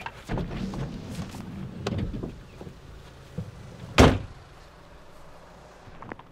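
Car door heard from inside the cabin: shuffling and clicks as the driver climbs out, then the driver's door slammed shut with one loud thud about four seconds in.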